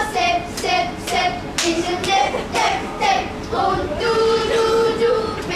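A group of children singing a song together, with rhythmic hand claps about twice a second keeping time for a clapping game; a long held note comes near the end.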